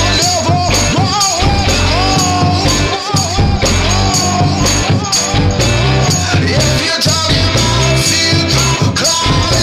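Background music: a song with a sung vocal melody over a steady drum beat and heavy bass.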